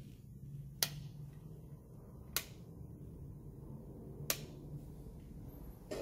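Three sharp clicks, about a second and a half apart, of a wall socket's rocker switch being flicked, over a faint low hum.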